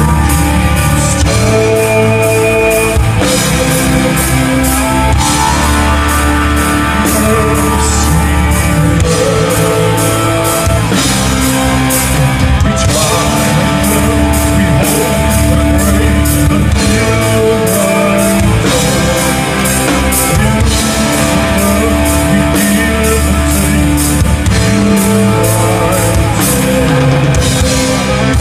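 Live rock band playing, loud and continuous: a steady drum-kit beat, guitar, and a male singer.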